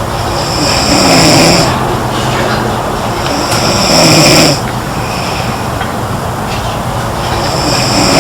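A girl snoring in her sleep: three loud snores, one every three and a half seconds or so, the last one starting near the end, over a steady background hiss.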